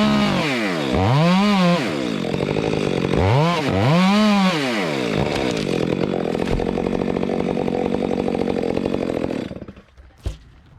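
Chainsaw revving up and down several times, then held at a steady high speed for about four seconds as it cuts, before cutting off suddenly; a short knock follows.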